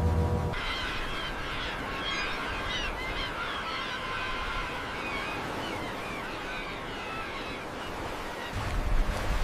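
Many birds calling in short, overlapping calls over a steady background hiss, with a low rumble coming in near the end.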